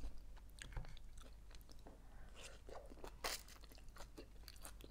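Close-miked chewing and eating of arugula salad: soft, crisp crunches and mouth sounds, with a sharper crunch a little after three seconds in.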